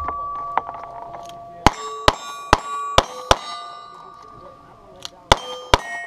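Revolver shots at steel targets: five quick shots, a pause of nearly two seconds, then four more. After each shot the steel plate rings, a sign that the shot hit.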